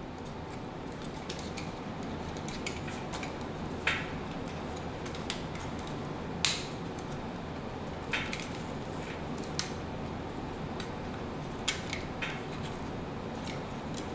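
Irregular clicks and clacks of a hard plastic Acid Rain ST88 Sand Cannoneer toy being handled, its jointed parts and tracks moved and snapped into place during transformation. The loudest snap comes about six and a half seconds in, over a steady low hum.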